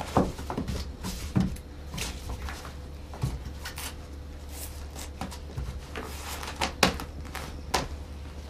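Scattered rustles and short clicks of a fabric blood pressure cuff being handled and wrapped around a cat, over a faint steady hum.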